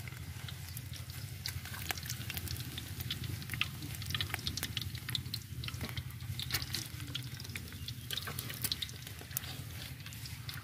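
Boiled eggs frying in hot oil in a steel karahi, the oil sizzling with many small crackling pops as the eggs are lifted out with a metal slotted spoon onto a steel plate, over a steady low hum.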